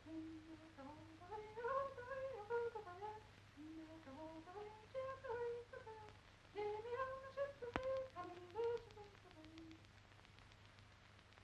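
A single voice humming a slow tune in three phrases, then stopping about ten seconds in. A sharp click sounds near the end of the tune, over a steady low mains hum and hiss.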